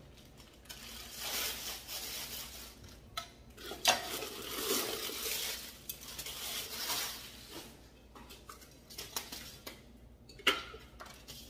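Plastic wrap and packing material rustling as a glass canister and its metal lid are unwrapped, with a few sharp clinks of glass and metal knocking together or being set down on a stone countertop, about three seconds in, a second later, and again near the end.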